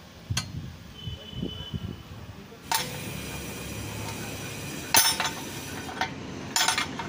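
Bent steel flat-bar rings clinking and knocking against each other and a steel work table as they are handled, a few separate metallic knocks, the loudest about five seconds in.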